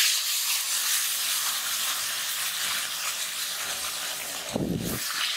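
Wet boiled vegetables poured into hot oil in a kadai burst into a loud sizzle and hiss of steam that starts suddenly and then keeps going steadily. A short lower sound cuts in about four and a half seconds in.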